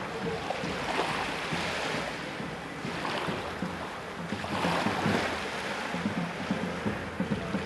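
Small waves washing at the shoreline of a calm sea, the wash swelling and fading every couple of seconds.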